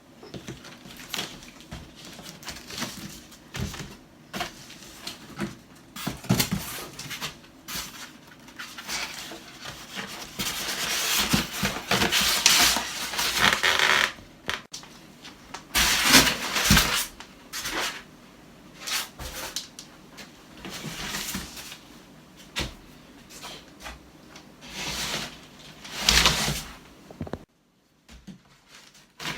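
Irregular knocks, clatter and scraping of objects being handled and moved, with a few longer bouts of scraping.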